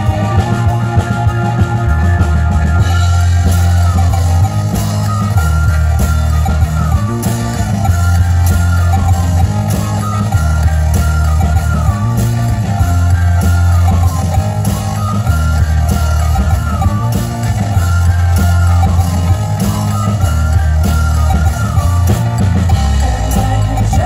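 A live rock band plays an instrumental passage without vocals: drum kit, electric bass and guitar, accordion and synthesizer. A stepping bass line runs under a riff that slides down in pitch and repeats about every two seconds.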